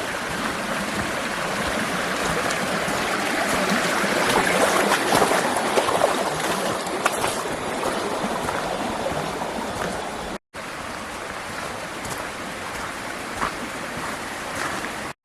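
Small rain-swollen stream running over its bed, growing louder to a peak a few seconds in and then easing. The sound drops out for a moment about ten seconds in and resumes a little quieter.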